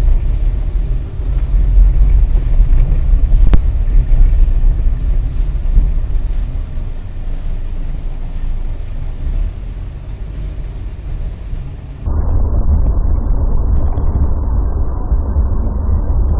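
Low, steady road and engine rumble inside a moving car, as picked up by a dashcam, with a single sharp click about three and a half seconds in. About twelve seconds in it cuts to a duller, muffled recording of the same kind of in-car driving rumble.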